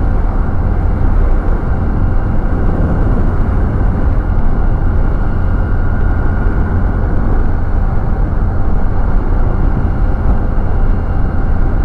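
Steady rush of wind on the microphone and road noise from a TVS Ntorq 125 scooter cruising at about 60 km/h, heaviest in the low rumble.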